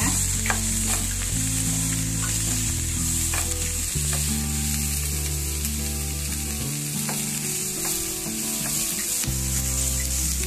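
Sliced onions and whole spices sizzling in hot oil in a nonstick pan, stirred with a wooden spatula, with a few short scraping strokes. Low sustained tones change every second or two underneath.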